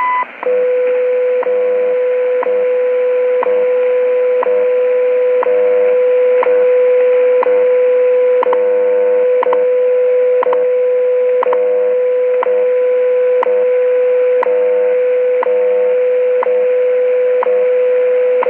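WWV shortwave time signal station on 5000 kHz heard through a Tecsun PL-600 receiver's speaker: the tail of the higher minute-marker beep, then a steady 500 Hz tone with a short tick once every second, over a light hiss of shortwave static.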